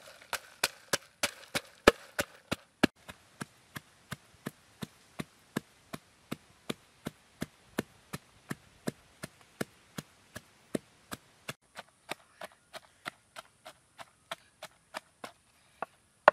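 Wooden pestle pounding red chillies, garlic and palm sugar in a wooden mortar: a steady run of knocks, about three a second, strongest in the first couple of seconds.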